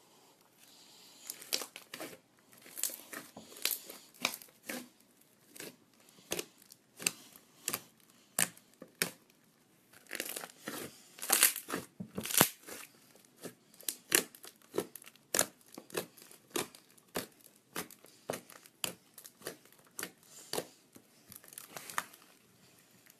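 Slime being played with by hand, giving a run of irregular sharp clicks and pops, about one or two a second, thickest and loudest about ten to twelve seconds in.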